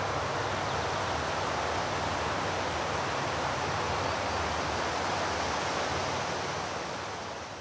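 Steady, even rushing noise of outdoor ambience, easing down near the end.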